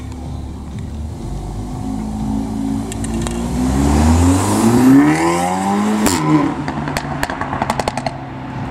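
Volkswagen Golf R's turbocharged four-cylinder engine accelerating away, its note rising steadily for a few seconds. It is cut by a single sharp crack as the revs drop, then a quick string of exhaust pops and crackles near the end.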